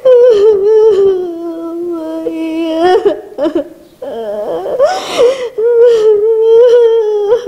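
A woman wailing in grief: two long, drawn-out cries, with a sharp catching breath between them.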